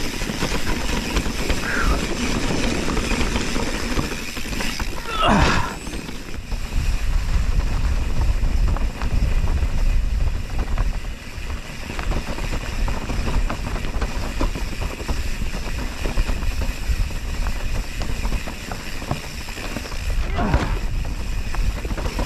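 Mountain bike ridden along a dirt trail, heard from the bike: a steady rumble of tyres on the ground, wind on the microphone, and the bike rattling and knocking over bumps. A brief sweeping swish comes about five seconds in and again near the end.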